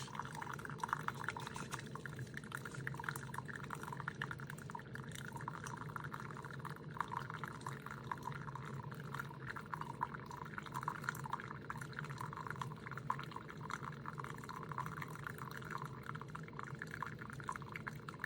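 TWOMEOW single-serve pod coffee maker dispensing a steady, trickling stream of hot brewed tea into a cup.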